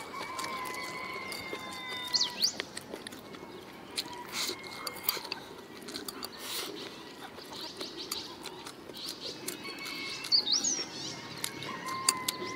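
Eating with chopsticks from a rice bowl: scattered sharp clicks of chopsticks against the bowl, along with chewing. A bird calls twice in the background, each time a held whistled note that ends in a quick upward sweep, about two seconds in and again near ten seconds.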